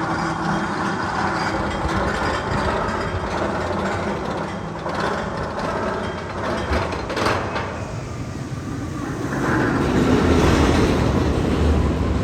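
A roller coaster train rumbling along its steel track, with a sharp click about seven seconds in; the rumble grows louder from about nine and a half seconds in.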